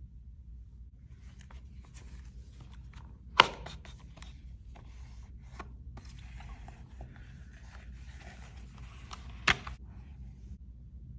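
Paper-and-cardboard packaging of an Apple FineWoven iPhone case being opened by hand: rustling, scraping and tearing with many small clicks, and two sharp snaps, one about three seconds in and one near the end.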